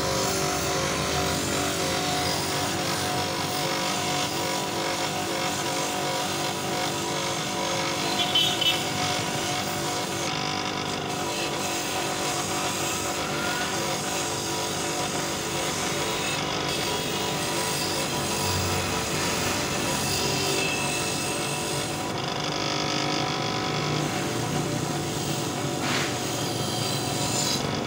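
Bench-mounted motor spinning a wire brush wheel against a metal motorcycle engine casing: a steady scrubbing, rasping noise with the motor's hum under it, as old grime is brushed off the engine part to refurbish it.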